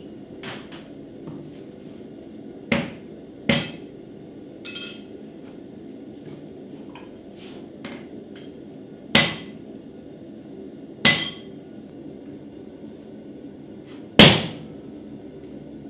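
Hammer blows on steel at an anvil during forging: five heavy, ringing strikes spaced a few seconds apart, with lighter taps between them.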